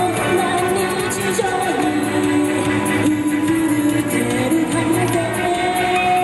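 A woman singing amplified through a microphone over instrumental backing, holding long sung notes.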